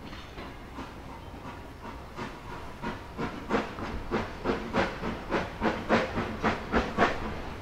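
Narrow-gauge steam locomotive pulling away: a steady hiss of steam, then exhaust chuffs from about two seconds in, coming about three a second and getting louder.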